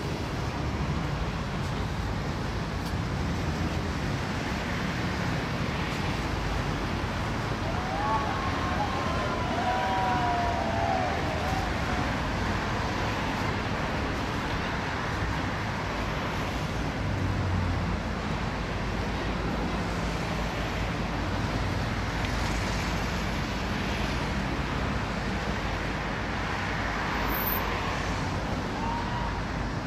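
Steady city traffic noise, an even rumble and hiss, with a siren wailing up and down for a few seconds about eight seconds in.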